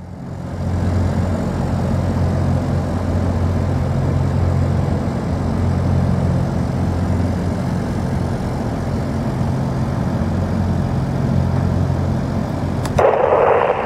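Heavy diesel engines running steadily, a low even drone. Near the end a burst of two-way radio noise cuts in.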